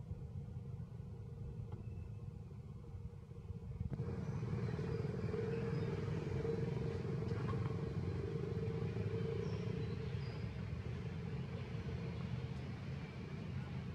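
Steady low background rumble that gets louder about four seconds in, with a few faint high chirps above it.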